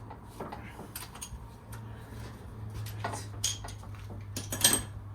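Metal hand tools and bolts clinking and knocking against metal, several scattered clinks with a louder ringing clank near the end, over a steady low hum.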